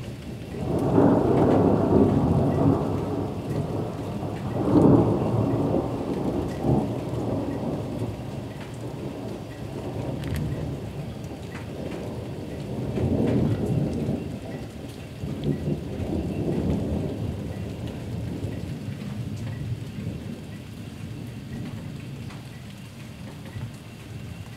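Thunder rolling over steady rain. The rumble breaks in about a second in, swells again around five seconds, and returns in weaker rolls before dying away. Scattered raindrop ticks sound underneath.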